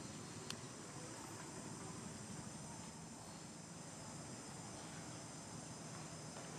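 A faint, steady, high-pitched insect chorus, with one sharp click about half a second in.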